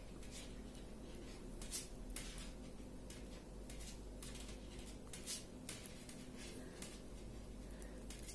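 Faint, irregular clicks and rustles of knitting needles and yarn as a row of purl stitches is worked, over a faint steady hum.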